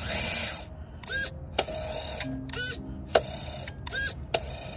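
Gear-shift servo of an FMS Toyota FJ pickup RC crawler's two-speed gearbox working back and forth: short whirs from the servo, each followed by a loud, sharp click, three clicks in all. This clicking, heard when the servo turns to change gears, is a known quirk of this truck.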